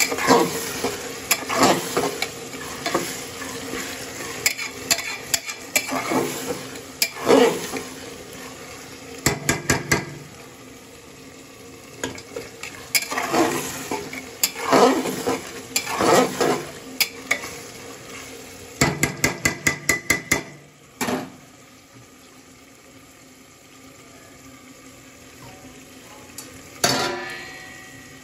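Metal spoon stirring and scraping onions frying in oil inside an aluminium pressure cooker, with sizzling underneath. Twice there is a quick run of metallic taps against the pot, and after about two-thirds of the way the stirring stops and only the quieter sizzle remains, broken by one loud clatter near the end.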